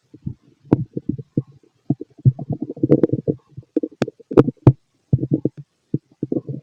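Stomach and intestines gurgling and rumbling in irregular, bubbly bursts, with a few short sharp clicks among them.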